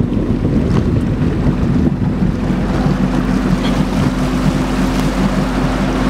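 Motorboat engine running steadily under way, a constant low hum, with wind buffeting the microphone and the rush of water from the wake.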